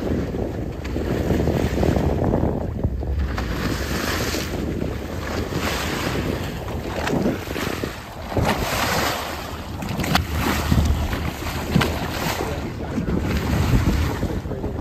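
Wind gusting over the microphone on a fishing boat at sea, over the wash of waves, rising and falling in uneven gusts.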